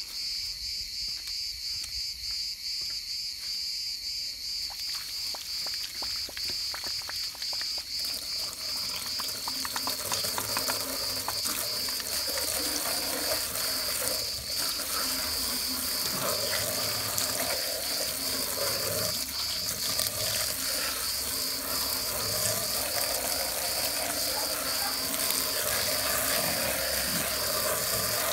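Garden hose spraying water onto a car's hubcap and tyre, rinsing off iron-fallout remover, as a steady hiss and splatter that starts about a quarter of the way in. A steady, pulsing high-pitched chirping runs throughout.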